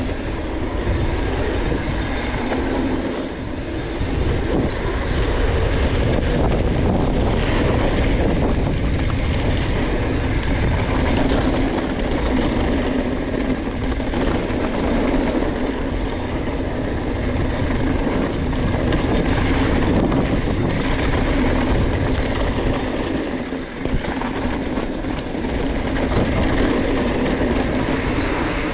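A mountain bike rolling fast down a gravel and hardpack trail: a continuous rumble of tyres on loose stones, with the bike's chain and parts rattling over the bumps.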